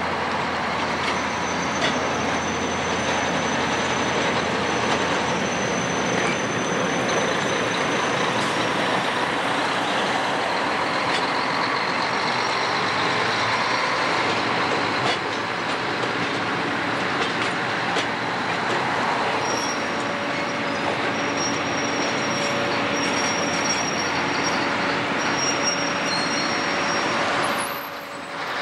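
Chicago & North Western passenger train rolling past, a steady rumble and rattle of cars on the rails. Thin high-pitched squeals come and go over it. The sound drops away briefly near the end.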